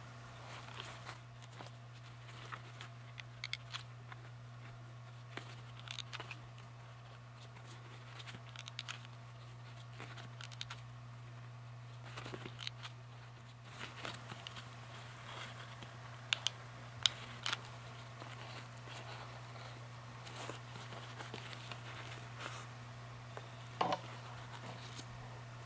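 Faint crinkling and scattered small clicks of a stiffened paper-towel mask being handled, over a steady low electrical hum.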